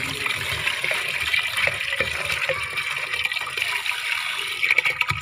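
Thinned epoxy paint pouring in a steady stream from a metal paint can into a larger metal bucket, with a few clicks near the end.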